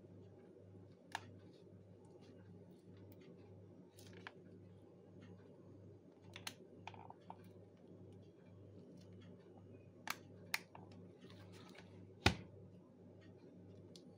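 A plastic LED emergency lamp handled in the hand: scattered light clicks and taps, with one louder knock about twelve seconds in, over a steady low hum.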